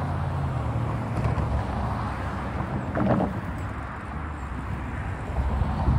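Road traffic at a railroad crossing: cars driving over the tracks, with a low engine hum that fades in the first second or two and another car going by about three seconds in.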